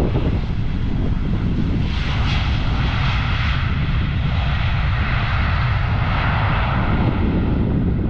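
Jet engine noise from an Airbus A320neo with CFM LEAP-1A engines on the runway after touchdown, swelling about two seconds in and holding steady over a low rumble.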